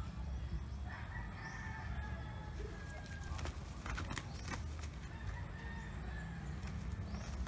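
A rooster crows, one long held call from about a second in and a fainter one near the end, over a steady low rumble. A few sharp clacks come midway.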